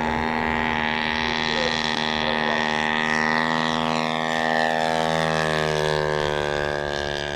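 DLE 85cc two-stroke gas engine and propeller of a 1:3 scale Fokker D.VII RC biplane in flight, a steady drone. Its pitch rises a little and then falls as the plane passes, and it fades slightly near the end.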